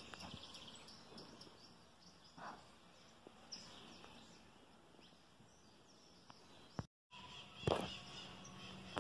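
Faint outdoor ambience with scattered bird chirps, busier towards the end, and a few soft knocks.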